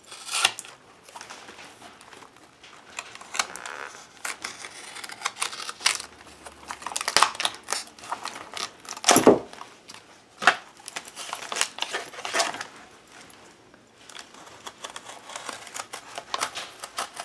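Paper and the glued spine netting of a book being picked at and torn apart with a wooden-handled pointed tool: irregular scratches, small rips and page rustles, with a louder thump about nine seconds in.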